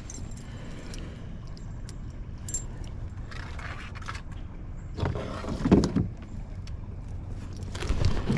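A spinnerbait's metal blades and hooks jingling as a just-caught bass is handled and unhooked, in a few short clattering bursts over a steady low rumble.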